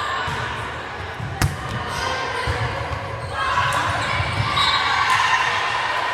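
Voices of players and spectators in a gym during a volleyball rally, with low thuds and a single sharp smack of a volleyball about a second and a half in. The voices grow louder from about halfway.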